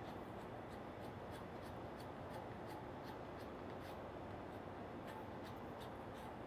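Hand scraper scraping old gasket material off the rim of a porcelain transformer bushing: short, irregular scrapes and clicks, about two or three a second, over steady shop background noise.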